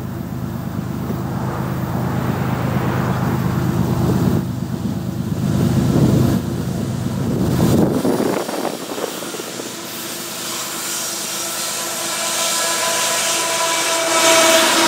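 Two GE ES44AC Gevo diesel-electric locomotives approach and pass at restricted speed. Their engine drone grows louder as they near. Near the end, steel wheels start to hiss on the rails as the lead units go by.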